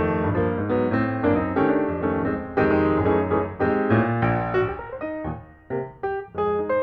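Background piano music: a melody of quickly struck notes over held low bass notes, briefly thinning out about five seconds in.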